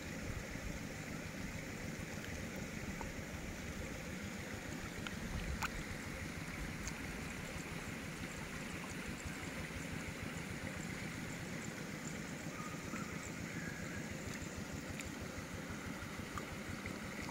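Steady rush of flowing river water, with an uneven low rumble underneath.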